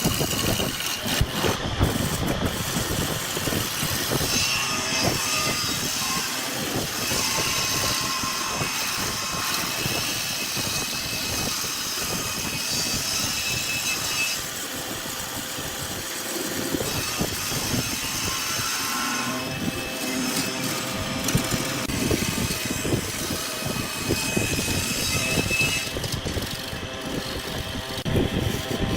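Wood lathe running, with a turning tool cutting and scraping a spinning block of milk flower wood in a steady, dense scraping noise with wavering high tones.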